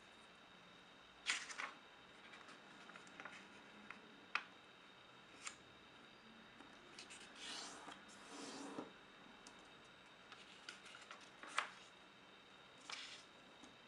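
Paper being folded and creased by hand on a tabletop: scattered crisp crackles and taps, with a longer rustling swipe about halfway through.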